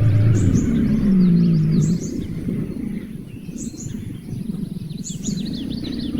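Bird chirps: short, high calls in quick pairs, repeating about every second and a half, with rapid squeaky notes below them. Under them runs a low drone whose pitch drops and then rises over the first two seconds, then a rough low rumble.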